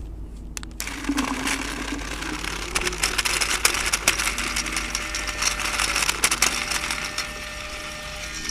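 Dye Rotor paintball loader feeding Reballs (reusable rubber paintballs): a dense rattle of balls clicking through the loader, starting about a second in, with a steady motor whine coming in about halfway. The feed runs without jamming.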